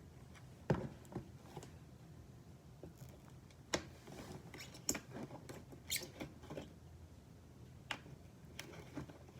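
Scattered light clicks and taps, about half a dozen spaced a second or so apart, from slime-making supplies being handled and set down on a table.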